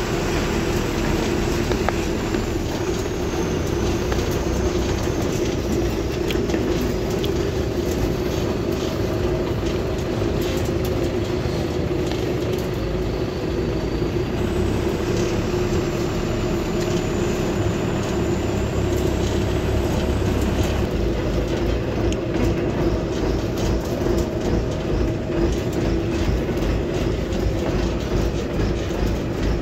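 Steady rumbling noise with a constant droning hum, unbroken throughout.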